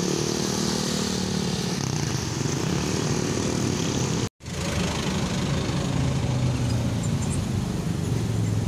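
Motorcycle and scooter engines running as they pass, over a steady background of road traffic. The sound drops out completely for a moment about four seconds in.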